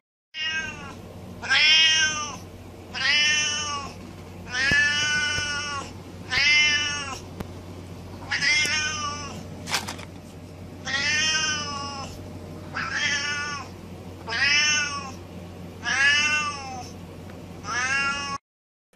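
Siamese cat meowing over and over: about eleven long calls, each rising then falling in pitch, a second or two apart, over a low steady hum. There is one sharp click about ten seconds in, and the sound cuts off suddenly near the end.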